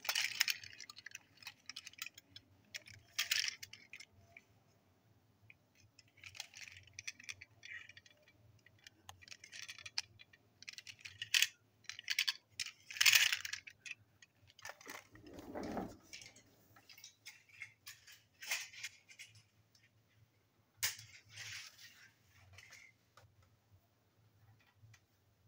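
Small toy train wagons handled in the hands: irregular clicks, light clinks and rattles as their plastic bodies and wheels are turned over, with one louder rubbing thump about 15 seconds in.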